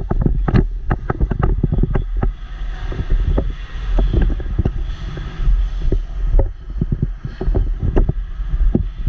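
Wind rumbling on the microphone, with many irregular clicks and knocks over it.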